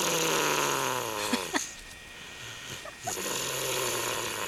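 An 18-month-old toddler snoring: two long snores, the first ending about a second and a half in, the second starting about three seconds in.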